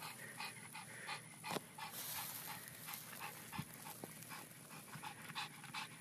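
Pug panting, a faint, even rhythm of short breaths at about three a second.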